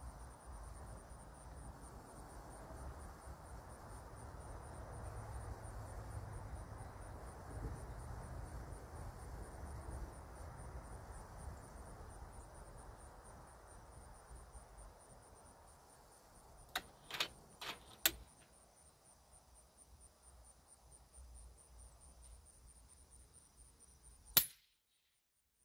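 A single sharp report from a SKOUT Epoch .30-calibre PCP air rifle firing near the end, the loudest sound, preceded a few seconds earlier by a quick cluster of about four sharp clicks. Steady cricket chirring and a low outdoor rumble run underneath.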